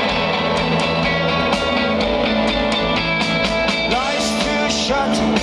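Rock band playing live: electric guitars, bass and drums, with a voice singing in from about four seconds in.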